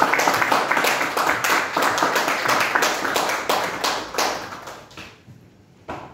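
Small audience clapping to welcome a speaker onto the stage, the applause thinning and dying away about five seconds in; one sharp tap near the end.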